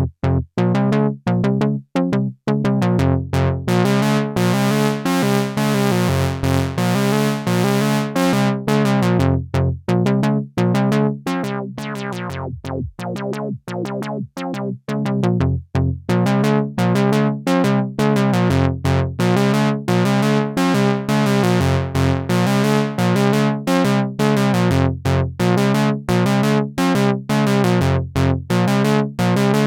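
Behringer 2600 analog synthesizer playing a fast repeating sequence of short notes over a low pattern that comes round about every two seconds. The tone brightens a few seconds in, turns duller and quieter around the middle, then brightens again as the filter opens.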